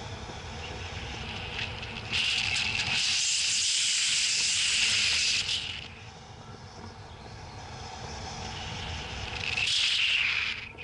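Wind rushing past a wing-mounted camera on a hang glider in flight: a steady low rumble, with a louder hissing surge from about two seconds in that lasts some three seconds, and another near the end.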